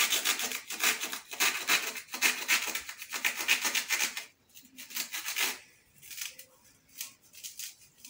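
Kitchen knife cutting through a dried loofah sponge as it is opened up, the dry fibres giving a scratchy rasp in rapid strokes for about four seconds, then a few sparser, shorter scrapes.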